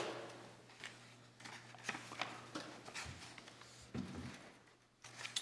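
Faint rustling of paper and scattered small clicks and knocks as documents are handled at desks, over a steady low hum.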